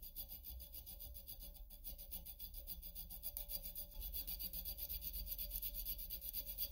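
Flat hand file rasping back and forth across the edge of a small metal part, a steady run of quick scraping strokes.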